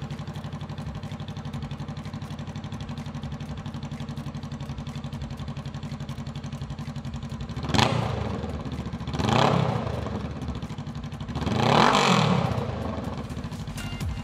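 2018 Honda Rebel 500's parallel-twin engine, breathing through a Radiant Cycles Shorty GP slip-on exhaust, idling steadily just after a cold start. It is then revved three times in the second half, a quick blip first and the last rev the longest and loudest, each time dropping back to idle.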